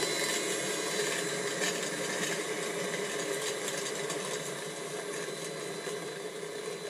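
Model rotary snowplow and its pushing locomotives running through snow, a steady small-motor whir over an even hiss.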